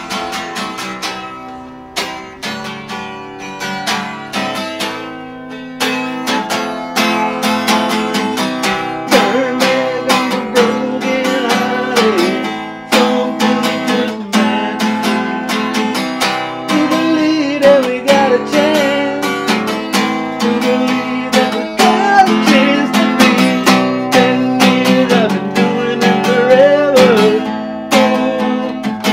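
Acoustic guitar played live, with plucked notes and strums ringing in a steady run of chords and melody, getting louder about six seconds in.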